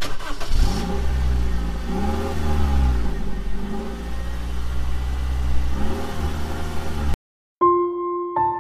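A car engine revving, its pitch rising and falling a few times, which cuts off suddenly after about seven seconds. A few piano notes begin near the end.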